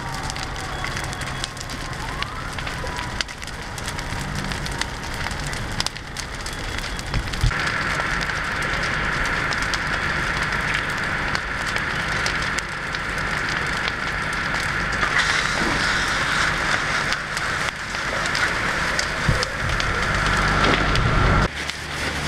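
Travel trailer and wooden fence burning fiercely: dense crackling and popping of burning wood. Beneath it runs a steady low hum, and a steady high tone comes in about a third of the way through and stops near the end.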